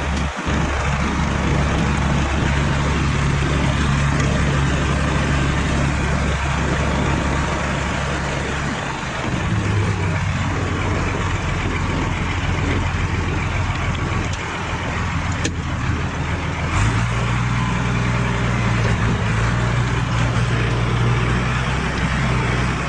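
Farm vehicle engine running steadily, its low hum changing pitch about nine seconds in and again about seventeen seconds in as the engine speed changes.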